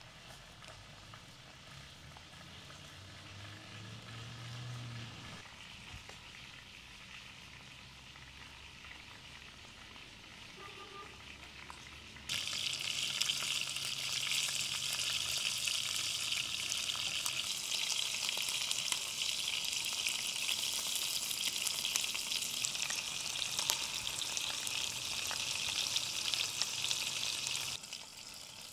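Chicken pieces frying in oil in a metal pan over a wood fire: a steady, loud sizzle that starts suddenly about twelve seconds in and stops near the end. Before it come only faint handling sounds of garlic cloves being peeled and cut with a small knife.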